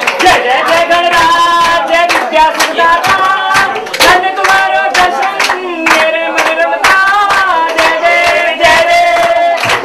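Voices singing together to a steady beat of hand clapping, with long held notes.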